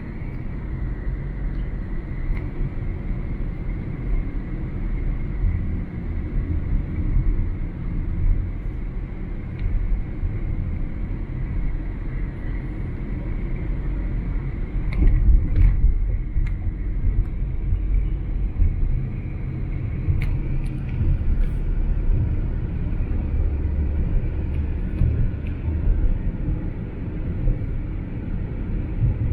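A car driving on the interstate, heard from inside the cabin: a steady low rumble of road and engine noise.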